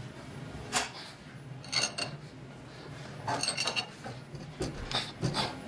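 Several metal clinks and rattles as a spanner is fitted to the ER32 collet nut of a BT30 tool holder held in a tightening fixture, and the nut is tightened down on a carbide end mill. Some of the clinks ring briefly.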